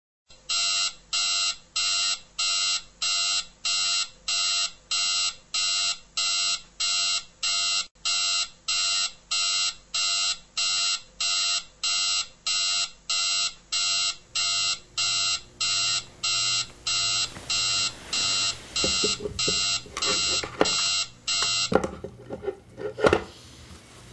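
Electronic alarm clock beeping in a steady pattern, about two beeps a second, for some twenty seconds until it is cut off abruptly, having been switched off. Bedding rustles in the last few seconds, with a sharp knock near the end.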